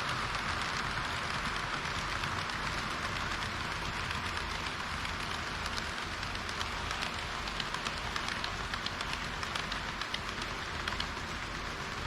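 HO-scale model train running on its track: a steady rushing hiss of wheels and motor, with quick clicks over the rail joints from about six to eleven seconds in.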